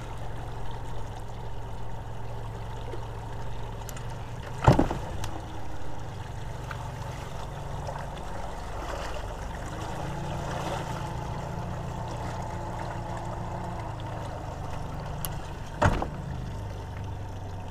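Water lapping at a fishing boat's hull over a steady low hum, with two sharp knocks, one about five seconds in and one near the end.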